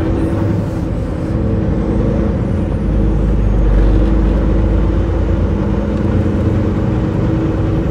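Semi-truck's diesel engine running at low speed, a steady low drone heard inside the cab as the rig rolls slowly.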